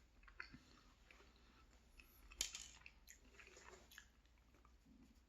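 Faint close-up chewing of a mouthful of tourtière meat pie: soft wet mouth clicks, with one sharper click about two and a half seconds in.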